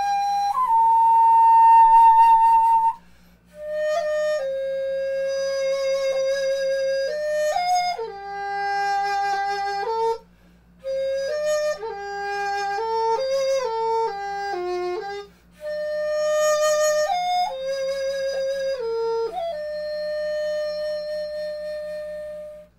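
A solo melody on a flute-like wind instrument, played in phrases with short breath pauses and ending on a long held note.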